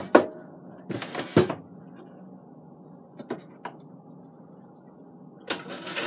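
Air fryer basket being set down on the countertop: a knock and a short scrape in the first second and a half, then a few light clicks. Near the end comes a run of clattering and scraping as a utensil works against the basket's grate.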